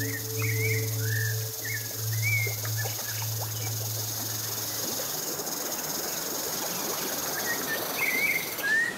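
Rural outdoor ambience: a steady high chorus of insects with birds chirping repeatedly over it. A low, steady droning tone, likely the tail of the score, runs through the first half and stops about five seconds in, and a soft rushing noise grows in the second half.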